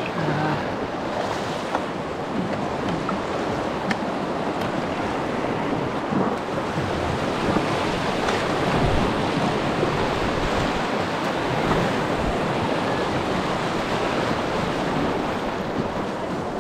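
Steady rushing of shallow creek water around a kayak, mixed with wind on the microphone, with a couple of faint clicks.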